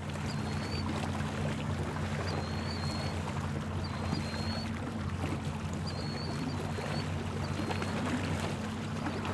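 Boat motor running steadily with a low hum, over the rush of water moving past the hull; a few faint short high chirps come and go above it.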